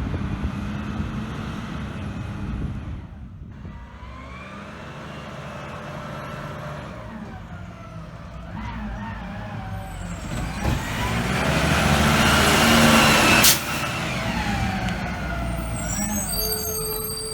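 Garbage truck's brakes squealing in wavering, gliding tones over the low rumble of its engine. A loud air-brake hiss builds about eleven seconds in and cuts off sharply a couple of seconds later.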